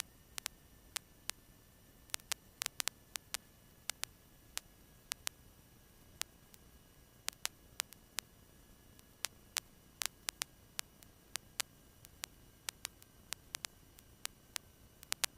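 Faint steady hiss with dozens of irregular sharp clicks and crackles, the static of an aircraft radio and intercom audio feed with nobody talking.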